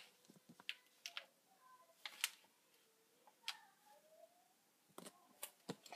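Near silence broken by scattered faint clicks and taps, about eight of them at uneven intervals, from fingers handling small decorative flowers close to the microphone.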